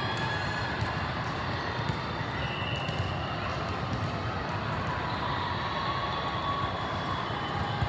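Steady din of a large volleyball tournament hall: many people talking at once across the courts, with a few scattered ball bounces.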